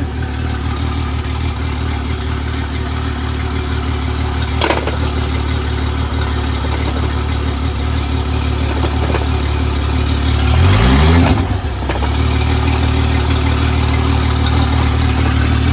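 Honda 250 hp fuel-injected V6 outboard running in forward gear, idling steadily, with a short rise in revs about ten and a half seconds in that falls back to idle a second or so later.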